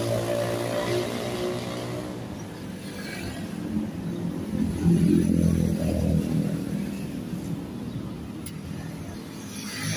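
Road traffic passing: motorcycle engines and a car driving by, with the loudest pass about five seconds in.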